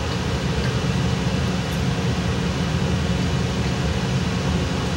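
Home heating system running: a steady hum and rushing noise with a low rumble underneath.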